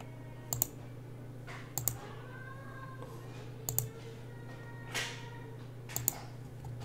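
Short sharp clicks from working a computer, mostly in quick pairs, about five times, over a steady low hum.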